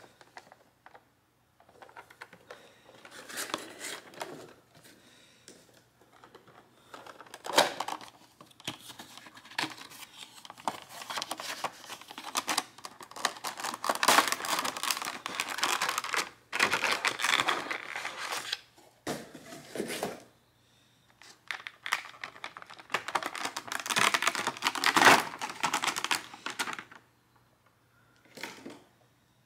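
A Funko Pop cardboard window box and its clear plastic insert being handled and opened by hand: crinkling and rustling of plastic and cardboard in irregular bursts, with a few sharper snaps, the loudest one toward the end.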